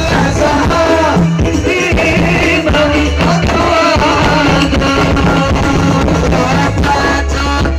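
Loud live music through a public-address system: a singer's voice wavering over a band with a steady beat and bass notes.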